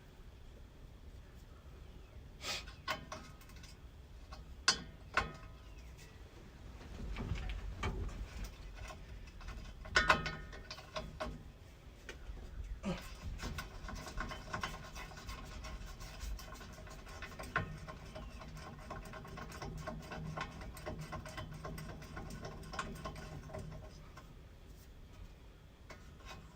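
Hand ratchet wrench clicking as bolts are worked loose, with scattered metal clinks and knocks of tools and parts. The ratcheting runs as a dense, rapid clicking through most of the second half.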